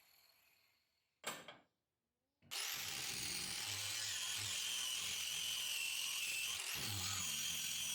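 A power grinder working steel: after a sound dies away and a short sharp noise about a second in, the grinder runs steadily from about two and a half seconds, a hiss with a high whine over it.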